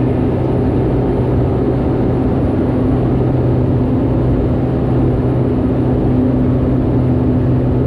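Steady drone of a Cessna 208B Grand Caravan's single Pratt & Whitney PT6A turboprop engine and propeller in flight, heard from inside the cockpit: a loud, even hum holding one low pitch.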